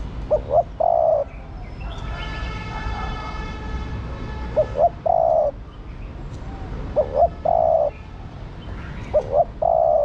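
Female spotted dove cooing four times, each phrase two short notes followed by a longer one. Between the first two calls there is a fainter, drawn-out high-pitched sound.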